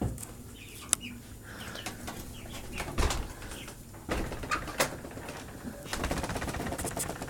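Hens and chicks in a coop making soft clucks, coos and small chirps, with scattered clicks and rustling and a couple of low thumps about three and four seconds in.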